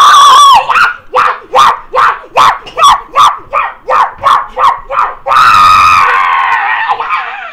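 A child's voice shouting loudly, then a quick run of short, pitched cries, about four a second, then one long, loud cry held for about two seconds near the end.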